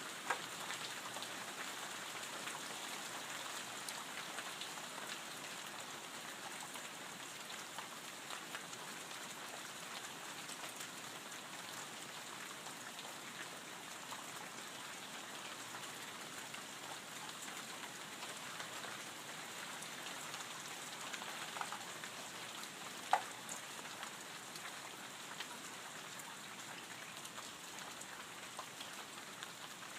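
Steady light rain falling, with scattered individual drips and one sharper drop hitting close by about 23 seconds in.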